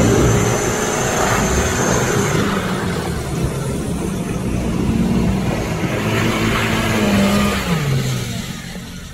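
Honda CR-V engine revving hard as its wheels spin in deep mud, with a thin high whine over it in the first couple of seconds; the revs drop near the end.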